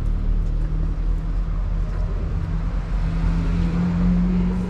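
A car running along the road: a steady low engine drone with road noise.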